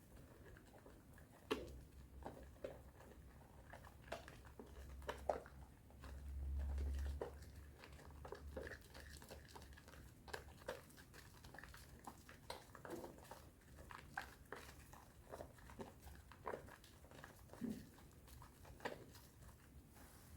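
Hands lathering a bar of strawberry soap with powder into thick foam: soft, irregular wet squishes and crackles. A low rumble swells briefly about six seconds in.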